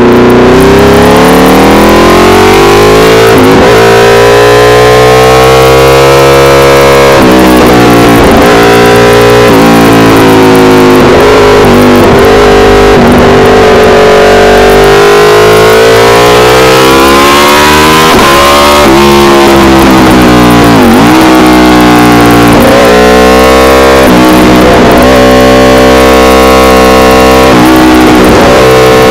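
Aprilia RSV4 Factory's V4 engine through an SC-Project CRT exhaust, loud and close, at racing speed on track. The revs climb for a few seconds and then fall sharply at each gear change or braking, many times over.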